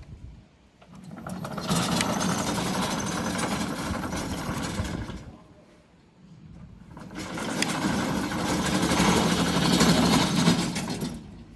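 Electric drive motors of a VTLM800 remote-control mower running as it drives, in two bouts of about four seconds each with a short quiet pause between.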